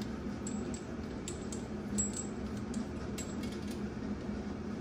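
Light, irregular metallic clicks and clinks as a bidet water-supply splitter fitting is turned by hand onto the toilet's supply connection, over a steady low hum.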